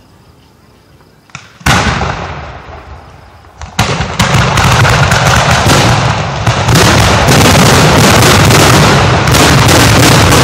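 Fireworks finale at close range: a single loud aerial shell burst a little under two seconds in, then from about four seconds a continuous, very loud barrage of shell launches, booms and crackling.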